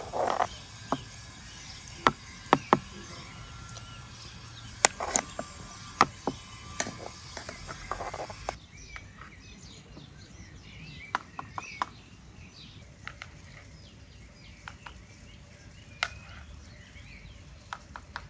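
Metal ladle clinking and knocking against a metal pot of broth with boiled meat, sharp strikes at irregular intervals. After about eight and a half seconds it gives way to birds chirping, with a few lighter clinks.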